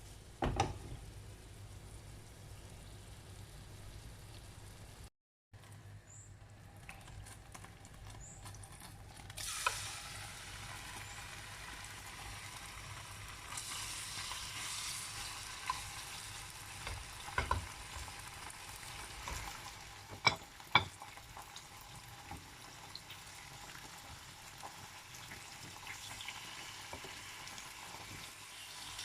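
Food sizzling as it fries in a pan, the sizzle getting louder about ten seconds in, with a few sharp knocks of a utensil against the pan.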